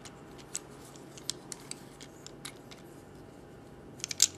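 Plastic parts of a Transformers Deluxe Ratchet action figure clicking as it is handled and transformed: scattered small clicks, then a quick cluster of clicks near the end.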